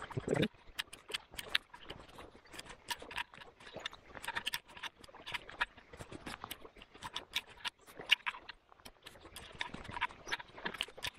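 Raindrops pattering close to the microphone: irregular light taps, several a second, some louder than others.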